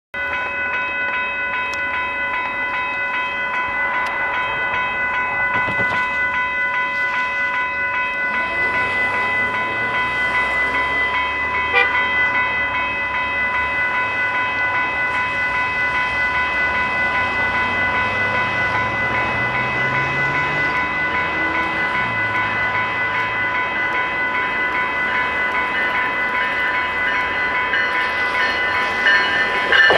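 Level-crossing warning bell ringing steadily, with a low rumble of passing traffic in the middle. In the last second or so it grows louder as a GO Transit push-pull train, cab car leading, reaches the crossing.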